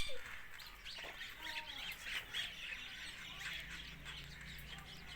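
Indian ringneck parakeet making soft, scattered chirps and short chattering calls.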